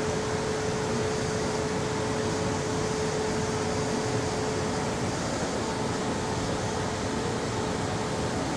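Steady ventilation fan noise: an even rush of air with a constant, hum-like tone running under it.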